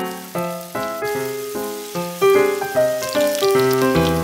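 Background music: a light, cheerful tune of short notes that each fade out, about two or three a second. Underneath is the faint sizzle of tofu cubes frying in hot oil.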